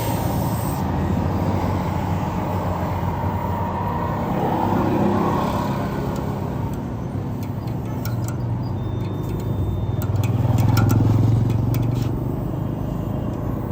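Motor vehicle engine running steadily with road noise, swelling in loudness twice, about five seconds in and again near eleven seconds, with a few light clicks in between.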